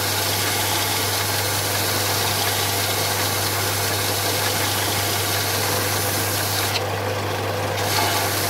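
Combination belt and disc sander running steadily, its motor humming under the hiss of the abrasive belt as a piece of spalted birch is held against it and sanded. The hiss drops for about a second near the end.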